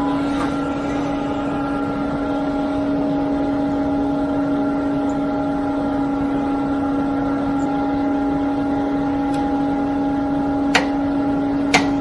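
Concrete pump truck's diesel engine running at a steady speed, a constant hum. Two sharp knocks come about a second apart near the end.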